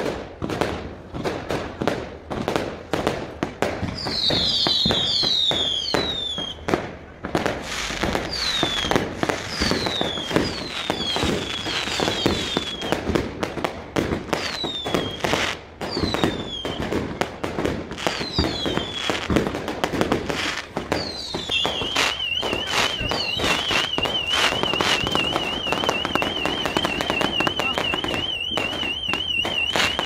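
Fireworks going off in quick succession: a dense run of bangs and crackles, with repeated short falling whistles through the first two-thirds. About two-thirds of the way in, a car alarm starts up with a fast warbling tone and carries on.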